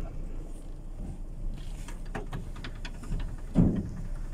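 Steady low rumble of a bus in motion heard from inside, with faint rattles and one louder knock about three and a half seconds in.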